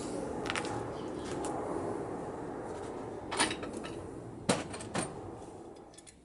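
Small metal parts of a Triumph T140's fork spindle clamps being handled: a few sharp metal clicks and clinks, the loudest about three and a half, four and a half and five seconds in, over a steady background hiss that fades near the end.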